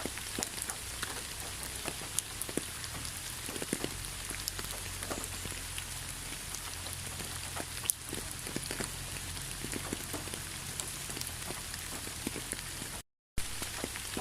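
Steady rain falling, an even hiss with many separate drops ticking sharply on a surface and a low rumble underneath. Near the end the sound cuts out completely for a fraction of a second, then resumes.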